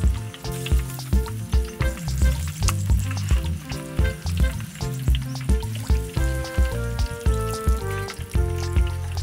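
Whole tubers deep-frying in a large wok of hot oil, sizzling and crackling steadily, under background music with a steady beat.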